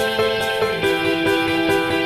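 Instrumental background music: sustained melodic notes that move to a new chord a little under a second in, over a soft, steady beat.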